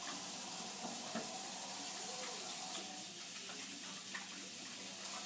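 Kitchen tap running water into a sink, a steady hiss, with a few light clinks.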